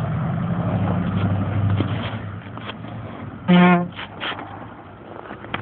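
Dodge Ram pickup truck engine running with a steady low hum that fades after about two and a half seconds, then a short, loud horn toot about three and a half seconds in.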